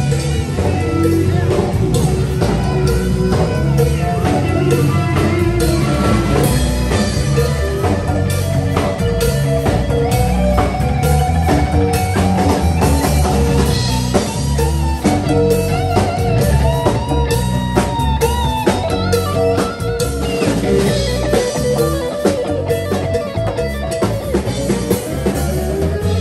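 Live band playing rock with electric guitar over bass guitar and a drum kit.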